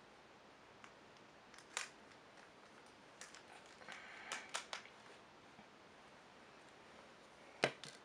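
Small, sharp clicks and taps from handling the parts of an opened Samsung Galaxy S3 smartphone: a single click a bit under two seconds in, a quick cluster of clicks around the middle, and the loudest knock near the end as the phone is set down on the table.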